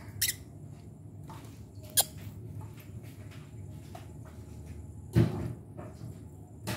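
Kitchen things being handled and put away: a few separate sharp knocks and clicks, with the heaviest, lowest thump about five seconds in.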